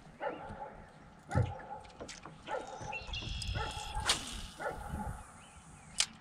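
A dog barking repeatedly, short pitched barks about one every half second to second, with a few sharp knocks among them.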